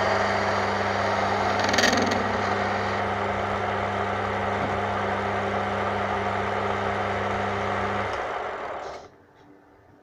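Belt-driven wood lathe running with a steady electric motor hum, with a brief louder burst about two seconds in. About eight seconds in the motor is switched off and the lathe spins down to a stop within about a second.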